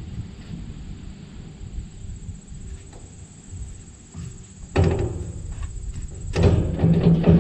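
Metal clunks and scraping as a grain cart's PTO driveshaft yoke is worked onto a tractor's rear PTO stub. Two loud clanks, one about two-thirds of the way through and a bigger one near the end.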